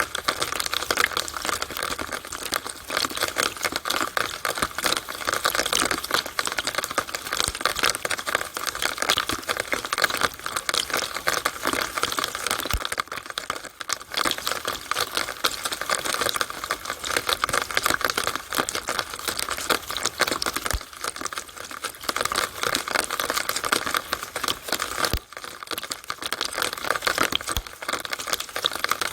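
Rainwater running down a downspout on a rainy day: a steady, dense patter of crackling drips and splashes.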